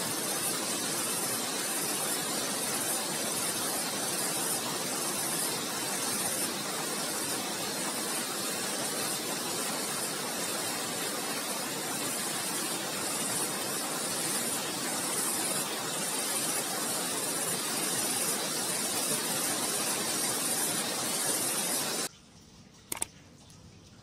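Steady rushing of flowing water, an even hiss, which stops abruptly about 22 seconds in; a single click follows a second later.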